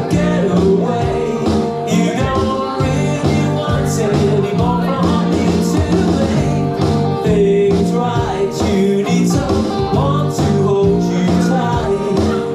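A live band playing a song: strummed and plucked acoustic guitars over a steady bass line, with a voice singing.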